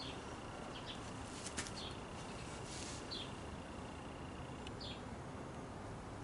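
Quiet background hiss with a few short, faint downward chirps spread through it and a single light tick about one and a half seconds in.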